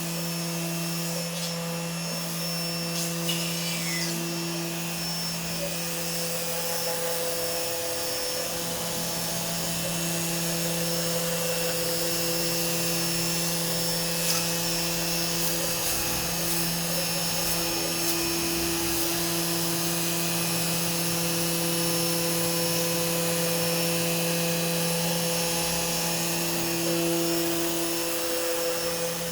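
CNC machine running: a steady motor hum and whine that swells and dips a little as it works.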